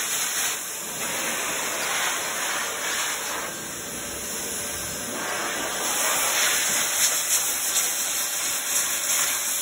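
Pet force dryer blowing a steady rushing hiss of air through its hose and nozzle into a wet dog's curly coat, blasting the water out after the bath. Its strength wavers slightly.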